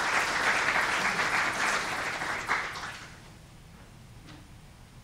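Audience applauding, dying away about three seconds in.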